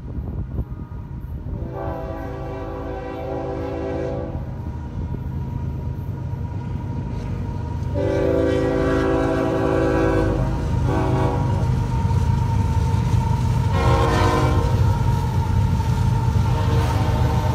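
Union Pacific diesel locomotives sounding their multi-note air horn in two long blasts and then two short ones, over a deep engine rumble that grows louder as the train approaches.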